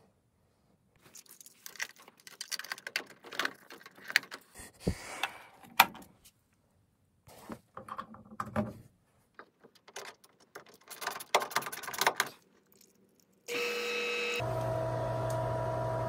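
Irregular clicks, knocks and rattles of plastic fittings, hoses and a power cord as a condensate pump is set in place and locked. Near the end the Little Giant VCMX-20ULS-C condensate pump's motor switches on and runs with a steady hum as it is tested.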